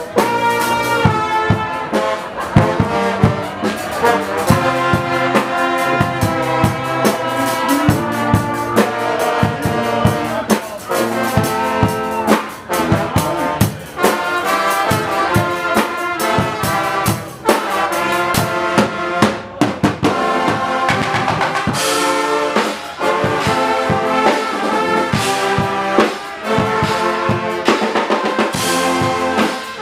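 Guggenmusik carnival band playing live: trumpets, trombones and sousaphone over bass drum and cymbals, with a short break about two-thirds of the way through.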